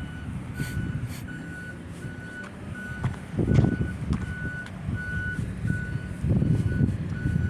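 Backup alarm of a heavy construction vehicle beeping at a steady pitch, about one and a half beeps a second, over a diesel engine's rumble that swells about three and a half seconds in and again near the end.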